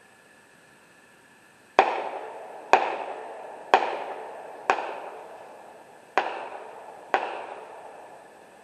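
Six gunshots in quick succession, about one a second with a short pause before the fifth, each followed by a long echoing decay.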